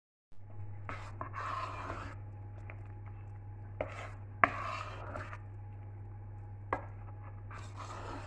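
Spoon stirring and folding thick fruit cake batter in a stainless steel pan, scraping in three spells. The spoon knocks sharply against the side of the pan three times.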